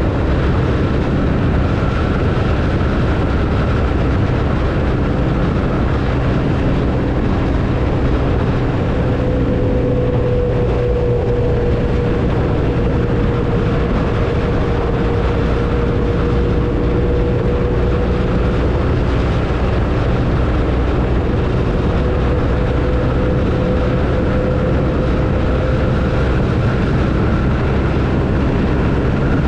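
BMW R 1250 RT's boxer twin engine running steadily at cruising speed, under a constant rush of wind and road noise. A faint steady whine sits over it through the middle.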